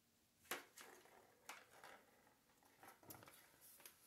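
A few faint, scattered clicks and taps from kittens playing with a plastic ball-in-track toy on a hard floor, the sharpest about half a second in; otherwise near silence.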